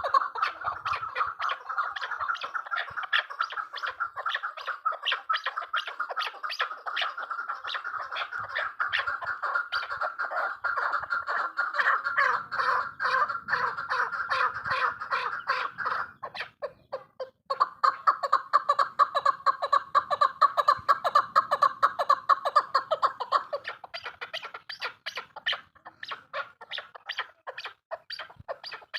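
Chukar partridge (chakor) calling: a long, rapid run of short repeated notes. The notes break off briefly a little past halfway, come back louder, and thin out near the end.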